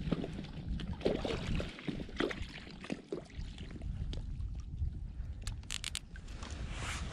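Small waves lapping and splashing at the shore under strong wind buffeting the microphone, with scattered short clicks through it and a quick run of sharper clicks a little past the middle.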